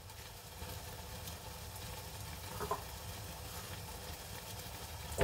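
Curry sauce cooking on the stove: a faint, steady sizzle over a low hum, with one soft tap about two and a half seconds in.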